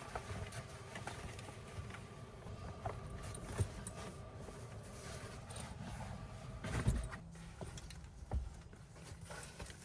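Low rumble of strong gusty wind against a van, with a few light knocks and rattles of things being handled inside, the loudest about three and a half seconds in and again near seven seconds.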